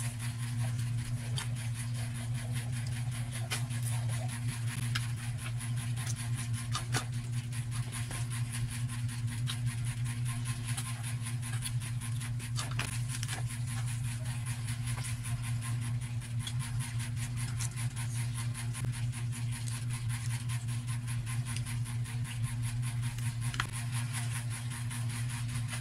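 Electric ceiling fan running with a steady low hum, with scattered small clicks and taps throughout.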